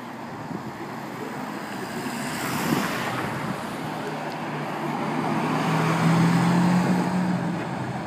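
Street traffic driving by, then a Lamborghini Aventador LP700-4's V12 passing at low speed on its standard exhaust, which is really quiet. Its steady, low whirring note is likened to a vacuum cleaner and is loudest about six to seven seconds in.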